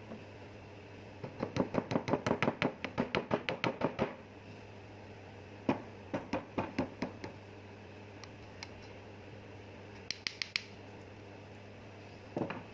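Rapid metallic clicking as parts of a pneumatic chipping hammer are twisted and fitted together by hand, about six clicks a second for a few seconds. A shorter run of clicks follows, then a few lighter ticks.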